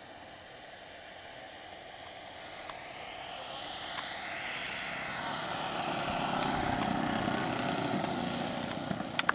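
Multi-engine radio-controlled model warbird flying past, its propeller engines growing louder and then fading, with the pitch shifting as it passes. One of its engines has dropped out, which the pilot puts down to the lean number-three engine.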